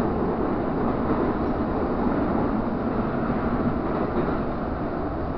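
Metro train running in a tunnel, heard from inside the carriage: a steady rumble of wheels on rail and running gear, easing slightly in level over the few seconds.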